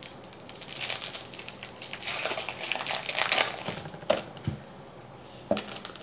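Baseball trading cards and their packaging being handled: a rustling, crinkling stretch of about three seconds, then a couple of sharp clicks.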